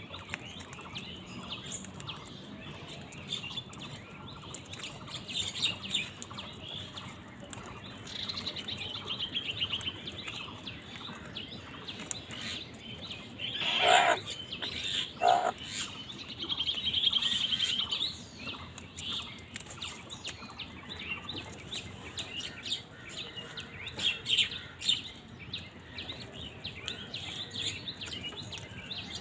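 Small birds chirping and trilling continuously while house crows feed, with two loud harsh crow calls about halfway through, a second and a half apart.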